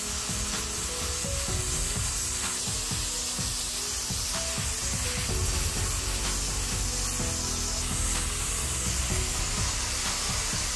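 Angle grinder with a sanding pad sanding an aluminum waffle pan, a steady rubbing hiss of abrasive on metal, under background music.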